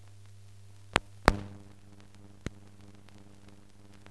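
Steady low mains hum with sharp clicks: two loud ones close together about a second in and a fainter one at about two and a half seconds, typical of the hum and splice pops on an old film soundtrack.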